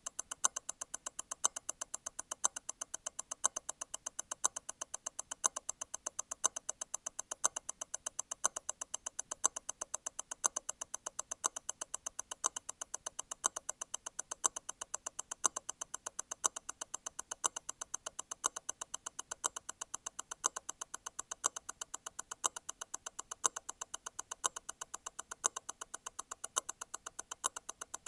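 Grand Seiko T0 Constant-force Tourbillon hand-wound movement ticking at 28,800 vibrations per hour, a fast even tick of eight beats a second. About once a second, every eighth beat, a louder tick stands out: the constant-force mechanism's stop wheel releasing and striking again.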